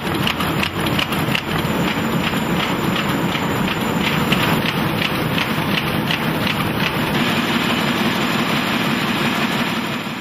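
Newspaper printing press running, a steady mechanical clatter with fast, evenly repeating clicks.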